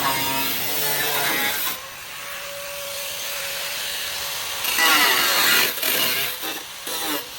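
Power tool cutting car body metal, its pitch wavering as it bites. It drops to a quieter steady running sound for a few seconds in the middle, then cuts loudly again.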